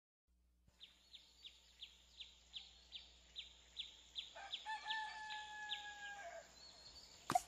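Faint bird-like calls: a steady run of short, high, falling chirps, about three a second, with a longer two-tone call of about two seconds partway through. A sharp loud sound comes right at the end.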